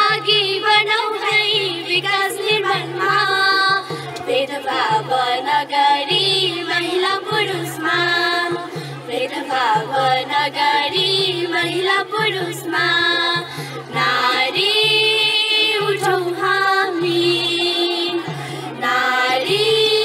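Group of young girls singing a song together into handheld microphones, over a steady low pulsing beat.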